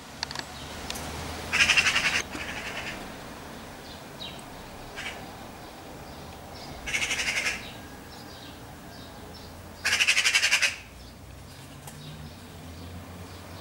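Eurasian magpie chattering: three short bursts of rapid, rattling harsh notes, a few seconds apart.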